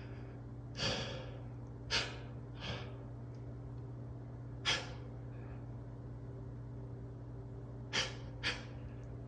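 A man's short, sharp sniffs and breaths through the nose, six of them spread irregularly, as he tries to hold back a sneeze from a tickling nose. A steady low hum runs underneath.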